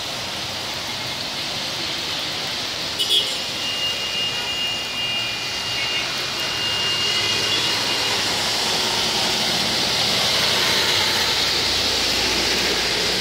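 Heavy rain falling as a steady hiss, mixed with traffic swishing along a flooded road; the rush grows louder after about eight seconds. A short clicking sound about three seconds in, and a thin high tone for a few seconds after it.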